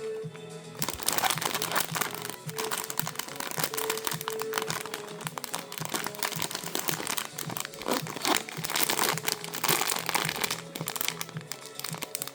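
Packaging being crinkled and handled as a blind-box toy is unwrapped: a dense run of irregular crackles. Light background music plays under it.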